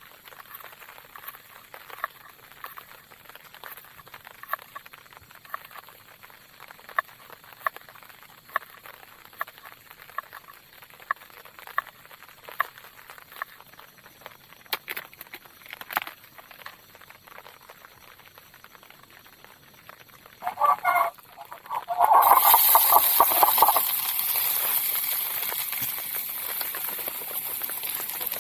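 Scattered light ticks and pops, then about 22 seconds in a sudden loud sizzle of frying that slowly dies down, as food goes into a pan of hot oil.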